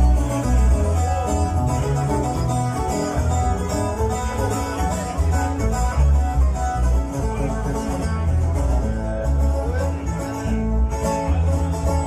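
Acoustic guitars strumming and picking an up-tempo instrumental passage over deep, moving bass notes, live in the room.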